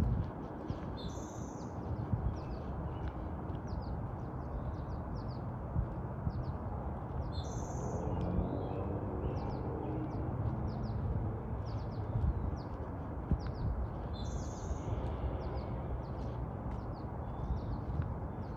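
Small birds chirping repeatedly, with a louder high call three times: about a second in, around seven and a half seconds, and near fifteen seconds. Beneath them runs a steady low rumble.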